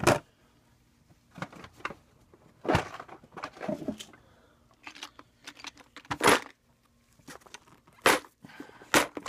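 Small metal diesel injector parts (springs, shims and discs) clicking and rattling as a clear plastic parts organizer is handled and opened: irregular sharp clicks and clatters, the loudest about a third of the way in, around two-thirds of the way in and near the end.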